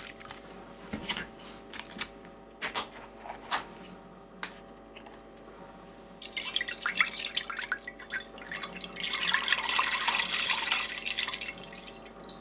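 Salt being added to the pot, heard as a crackly, gritty hiss for about five seconds after some light clicks and knocks of kitchen handling.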